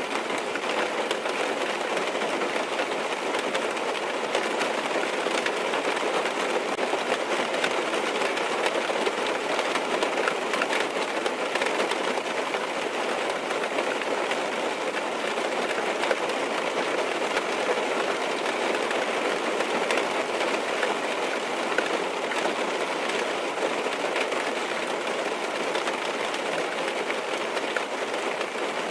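Steady rain on a car's roof and windows, heard from inside the car: a dense, even patter of drops.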